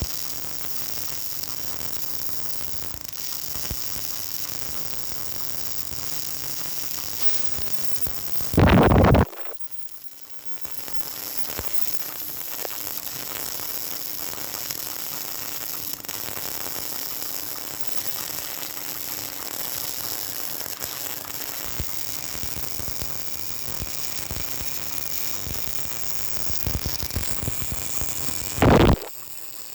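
Electric arc welding crackling and sizzling steadily, with a faint machine hum under it. Two short, very loud bursts cut in, one about nine seconds in, after which the crackle drops away for a couple of seconds before resuming, and another just before the end.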